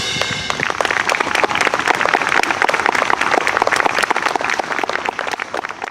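Outdoor audience applauding, a dense, steady patter of many hands clapping, after a concert band's final held chord dies away in the first half second.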